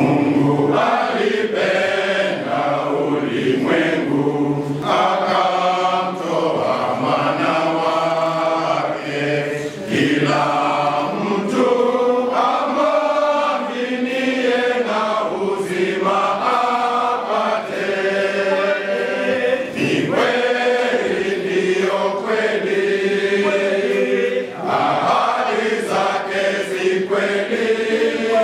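Men's choir singing a Swahili hymn together in unison and harmony, steadily and at a fairly full volume.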